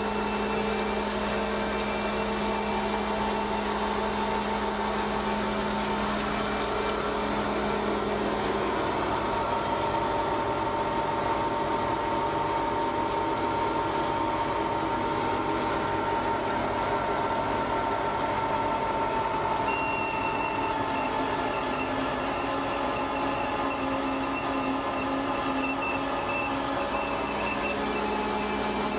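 Hensley Super Auger bulk feed trailer unloading, its auger system and the truck powering it running steadily, with a few steady tones and a faint higher whine joining about two-thirds of the way through.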